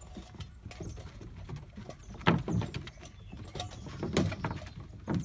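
Golden retriever puppies scrambling about on a wooden deck: irregular paw patter and knocks on the boards, with louder knocks about two seconds and four seconds in.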